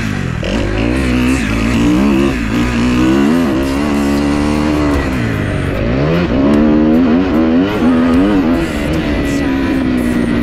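Motocross dirt bike engine revving hard, its pitch climbing and dropping again and again as the rider accelerates, shifts and backs off; a deep dip about five seconds in, then it winds back up.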